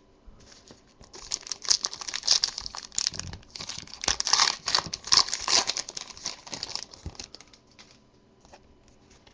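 Crinkling and crumpling of a trading-card pack wrapper being handled, a dense crackling from about a second in that dies away after about seven seconds.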